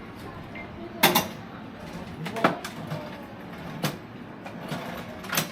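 A few sharp clacks and knocks, about one every second or so, over a low murmur of background voices.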